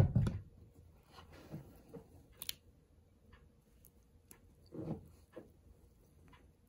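A thump right at the start, then store-bought slime thickened with clear glue being stretched and kneaded by hand, giving scattered soft squishes and clicks.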